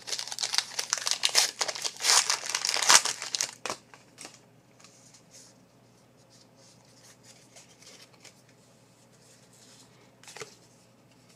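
A trading-card pack wrapper being torn open and crinkled for about the first three and a half seconds, then only faint handling rustles, with one brief crinkle near the end.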